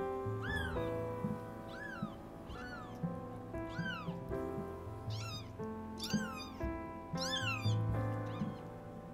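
Newborn kitten mewing during bottle feeding: about eight short, high cries, each rising then falling in pitch, roughly one a second, loudest near the end. Soft piano music plays underneath.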